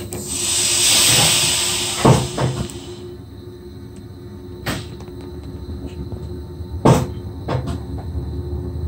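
SGM Sprinter train standing at a platform: a hiss of compressed air for about three seconds, then a series of separate clunks as the train starts to move off, over the steady hum of the cab.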